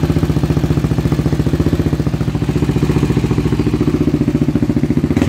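Honda ATC 350X's air-cooled four-stroke single-cylinder engine idling steadily through an aluminium Cobra long-canister silencer with only a light baffle inside, giving an even, fairly loud exhaust note.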